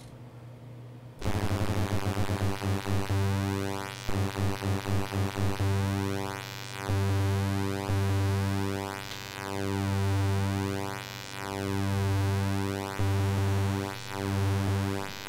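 Kurzweil PC3 synthesizer holding a sustained low pulse-wave note with pulse width modulation from a sine LFO, the tone sweeping and phasing as the pulse width changes. It comes in about a second in; the modulation wobbles several times a second at first, then slows to long swells about a second and a half apart.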